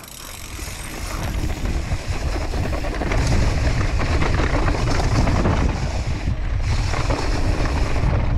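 Wind rushing over an action camera's microphone as a mountain bike gathers speed downhill, mixed with the rattle of tyres and bike over the dirt trail. The rush grows over the first three seconds, then holds steady and loud.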